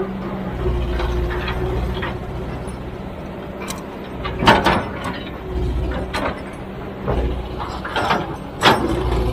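Heavy machinery engine running with a steady low rumble, broken by sharp clanks and knocks. The two loudest come about four and a half seconds in and near the end.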